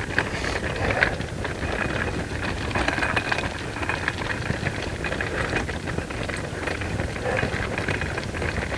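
A pulled wagon's wheels rolling with a continuous rattle, mixed with footsteps.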